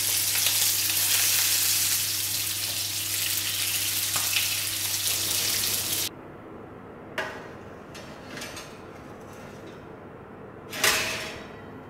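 Racks of goat meat searing in hot oil in a frying pan, a loud steady sizzle that cuts off abruptly about six seconds in. After it come a couple of light knocks and one louder clatter near the end as a metal tray goes onto the oven rack.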